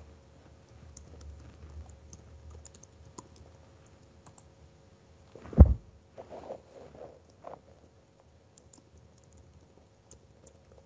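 Sparse computer-keyboard typing, faint key clicks, with one loud dull thump a little past the middle and a few softer knocks just after it.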